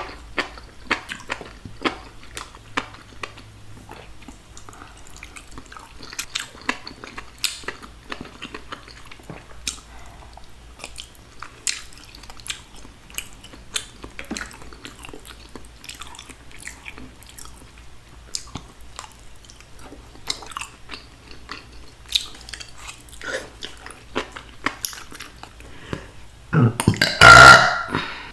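Close-miked chewing and mouth smacking on food in a sauce, with many sharp wet clicks. Near the end, one loud burp about a second and a half long.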